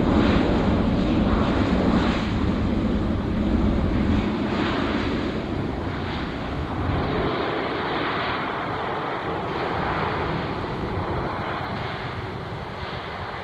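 Airliner engine noise that fades slowly away, mixed with wind buffeting the microphone in gusts.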